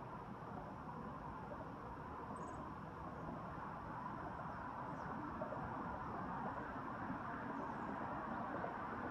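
Steady background noise with no clear single source, growing slightly louder, and two faint high chirps about two and a half and five seconds in.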